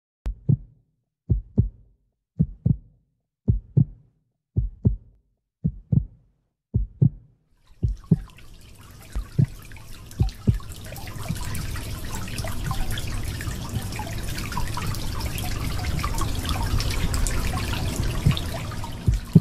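Heartbeat sound effect: paired low thumps, lub-dub, about once a second. About eight seconds in, a rushing wash of noise rises in behind the beats and slowly grows louder.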